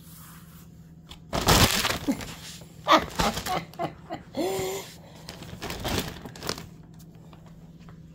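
Thin plastic shrink-wrap from a bottled-water case crinkling in loud bursts as a kitten scrambles around inside it, with a short voice-like sound about halfway through.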